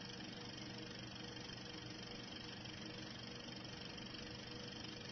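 Steady faint hiss with a low hum underneath and no distinct sound events: the noise floor of old silent home-movie footage.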